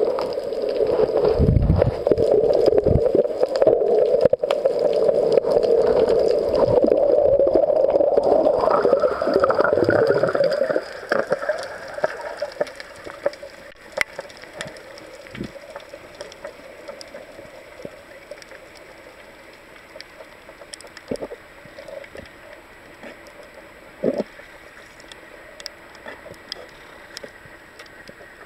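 Muffled underwater rushing of water over a camera in its waterproof housing as a freediver swims down. After about eleven seconds it drops to a quieter hiss with a few scattered clicks and knocks.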